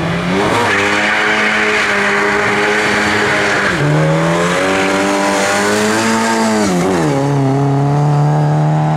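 Racing car engine running hard under load, its pitch climbing and then dropping sharply at a gear change about four seconds in, climbing again, and dropping again about seven seconds in.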